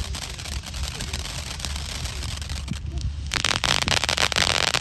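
Winda Snow Cone ground fountain firework spraying sparks with a hiss and crackle. About three seconds in the spray turns much louder and denser.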